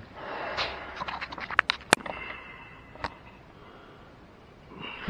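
Metal hand tools clinking against steel brake parts: a quick run of light clicks, then a few sharp clinks that ring briefly, and one more clink about a second later.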